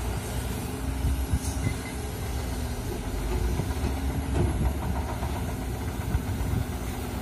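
Komatsu PC200 hydraulic excavator's six-cylinder diesel engine running steadily while the machine works, swinging its boom and lowering its arm.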